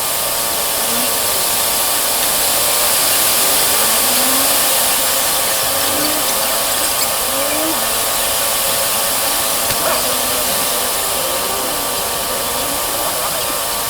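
Suzuki Gixxer SF's single-cylinder engine running steadily. It has fresh camshaft, rocker arms, timing chain and timing adjuster, and no longer makes its loud knocking: a smooth sound close to the factory original.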